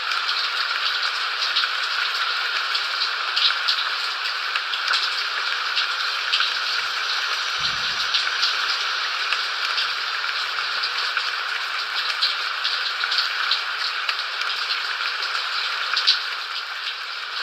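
Steady rain falling, a constant hiss with a dense patter of individual drops ticking through it.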